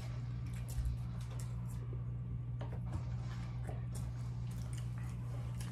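Faint small clicks and smacks of people eating chicken wings with their hands, scattered irregularly, over a steady low hum.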